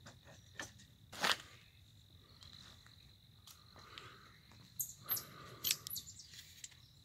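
Hydraulic floor jack handle being pumped, with a sharp clank about a second in, then a cluster of clicks and knocks around five to six seconds. A steady high-pitched insect trill runs behind.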